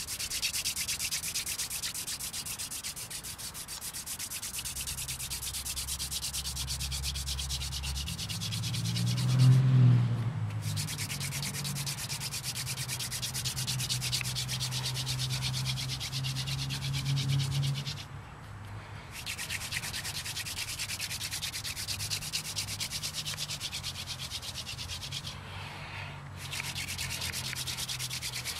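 Hand-drill friction fire: a dog fennel spindle spun between the palms and grinding into a loblolly bay hearth board, a fast, scratchy wood-on-wood rubbing that breaks off briefly three times, about ten, eighteen and twenty-six seconds in. A low hum lies under it through the first half, swelling to the loudest point around the first break.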